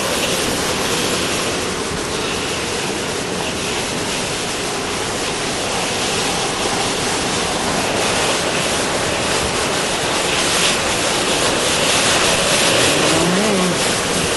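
Severe thunderstorm straight-line winds driving heavy rain: a loud, steady rush of wind and rain. About thirteen seconds in, a short tone rises and falls.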